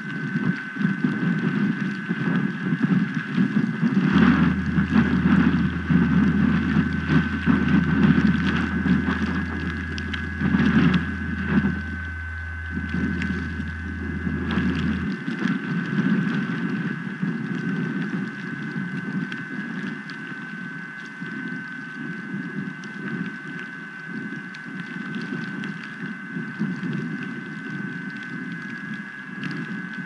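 Strong gusting wind buffeting an outdoor nest-cam microphone: a low, rumbling rush that swells and eases, heaviest in the first half. A steady thin high whine sits under it.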